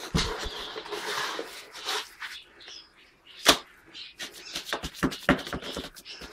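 Scraping and clicking of a gritty, wet eggshell-and-dolomite mix being handled and packed into cups, with one sharp knock about three and a half seconds in and a quick run of clicks near the end.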